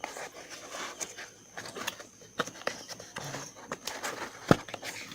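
A cardboard headphone box and its packaging being opened and handled: scattered clicks, taps and rustles, with one sharper knock about four and a half seconds in.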